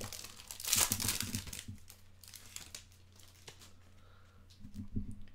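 Foil trading-card pack wrapper crinkling as it is handled, loudest about a second in, then a few fainter crinkles.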